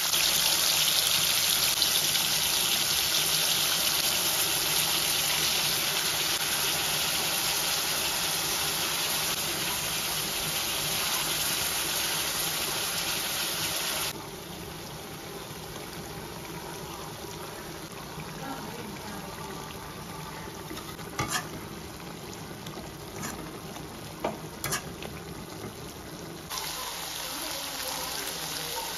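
Chicken pieces sizzling in hot oil in a kadai: a loud, even sizzle that drops suddenly to a quieter frying hiss about halfway through, with a few sharp clicks later on.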